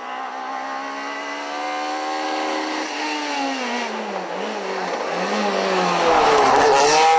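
Rally car engine at full throttle as the car approaches, getting louder as it comes near. The pitch climbs and drops sharply about three seconds in, and again near the end, where the sound is loudest and harshest as the car arrives close.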